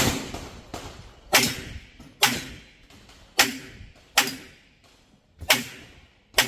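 Pistol shots, about seven, fired one at a time roughly a second apart at uneven spacing, each followed by a short echo.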